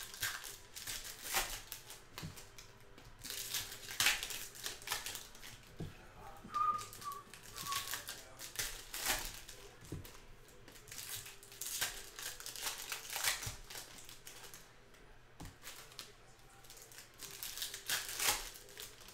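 Baseball card pack wrappers crinkling and tearing, with cards riffling and sliding against each other as packs are opened. It comes in short, irregular bursts every second or two.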